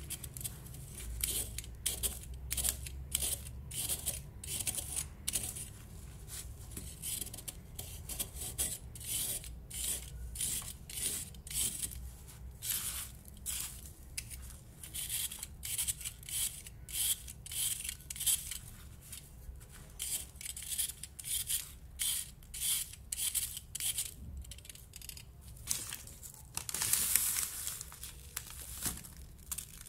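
Utility-knife blade shaving the edge of a pressed baking soda disc in quick, repeated dry scraping strokes, each shedding powder. Near the end comes one longer, louder crunching rustle as a hand rubs and crumbles the loose powder.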